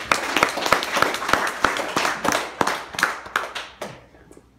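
Audience clapping, a dense patter of many hands that dies away about four seconds in.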